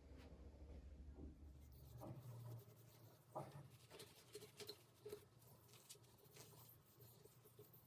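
Near silence: faint scattered taps and rustles of light handling, with a low hum that stops about two seconds in.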